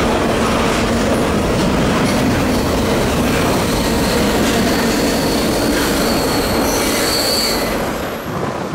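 Double-stack intermodal well cars rolling past close by: steady rumble and grinding of steel wheels on rail, with wheel squeal on the curve that grows sharper partway through.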